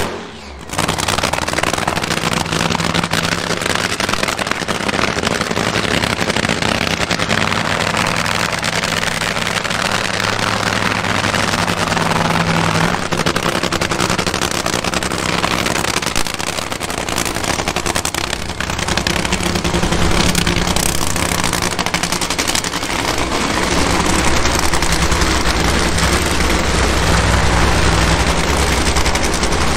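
Supercharged nitromethane-fuelled drag racing V8 running, a continuous rapid crackling firing.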